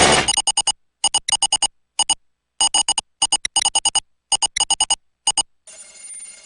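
A burst of static hiss cuts off, then short electronic beeps of one buzzy pitch are keyed out in irregular groups like Morse code, stopping about five and a half seconds in. A faint hiss with a low hum follows.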